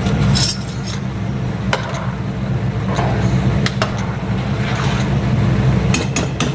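A steady low hum with scattered light metallic clinks as a lid and a utensil knock against a metal cooking pot on the stove, a small cluster of them near the end.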